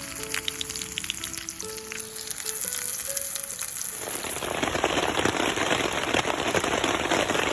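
Wood fire crackling in a small folding fire pit, getting denser and louder about four seconds in. Soft background music notes play over the first few seconds.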